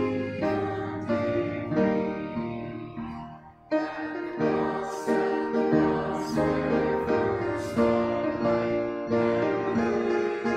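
Congregation singing a hymn with piano accompaniment, in sustained chords, with a brief pause between phrases about three and a half seconds in.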